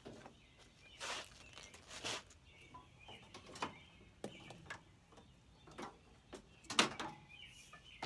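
Irregular scrapes, rustles and knocks of a wiring harness being fed along a skid steer's lift arm and rubbing against its metal frame, the loudest knock about two-thirds of the way in.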